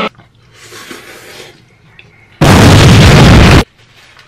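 A deliberately distorted, clipped blast of noise lasting a little over a second, starting a bit over two seconds in, in the manner of an ear-rape edit; before it there are only faint sounds.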